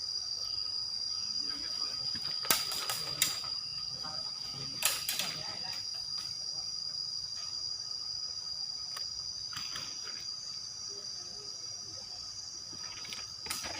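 Crickets or other insects trilling steadily at a high pitch. Over the trilling come a handful of sharp snaps, the loudest a few seconds in, which fit airsoft guns firing.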